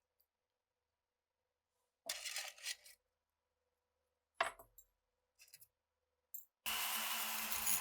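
Small metal parts clinking and scraping on a hard surface, with a sharp click about four and a half seconds in. Near the end a power tool starts and runs steadily.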